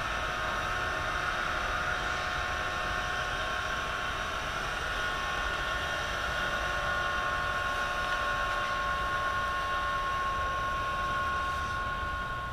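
Compressed-air spray gun hissing steadily as dye is sprayed by hand onto calf skin for a sprinkled-calf finish, over a steady high whine of two tones.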